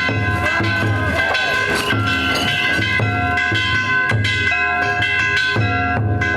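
Danjiri festival music: a taiko drum beating in a steady rhythm under the continuous ringing of struck metal gongs.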